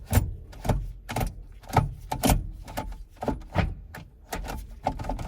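Manual gear shifter and its cable linkage being moved through the gates, giving a quick series of sharp clicks and clunks, about two a second.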